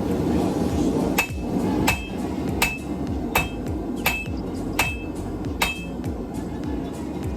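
Hand hammer striking hot steel on an anvil during forging: seven steady blows about two-thirds of a second apart, each with a short metallic ring.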